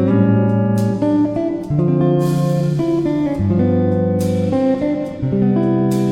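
Background music led by guitar, with sustained bass notes changing about once a second and light percussion.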